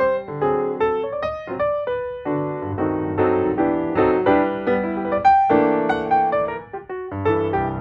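Background piano music with a gentle melody.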